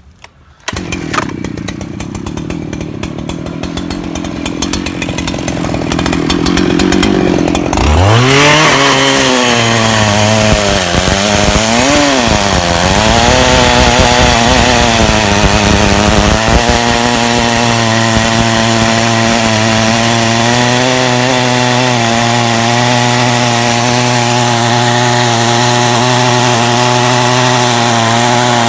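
Portable sawmill's petrol engine starting up about a second in and idling, then revving hard. Its pitch wavers up and down for several seconds as the blade enters the mahogany log, then holds steady at high revs while it saws the second cut.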